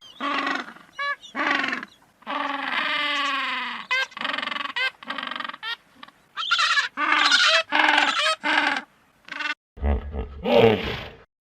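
A series of pitched farm animal calls: short cries with several longer ones, one long call falling in pitch about two seconds in.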